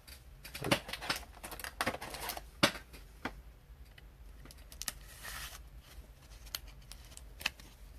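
Light, irregular clicks and taps of hands working at a tabletop, with a brief soft rustle about five seconds in.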